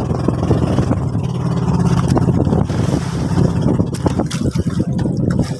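Small outrigger boat's engine running with a steady low hum, with water slapping and knocking against the hull. The engine hum fades about four seconds in.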